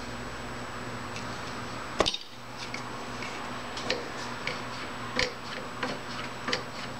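Metal winch parts being handled during assembly: one sharp metallic click about two seconds in, then a scatter of lighter clicks and taps as the steel rod and bolt are fitted to the spool and frame.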